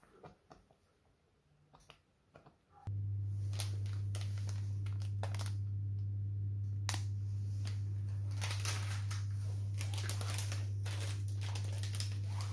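A steady low hum switches on abruptly about three seconds in and keeps going. Over it comes the irregular crinkling of a plastic packet of sliced pistachios being handled.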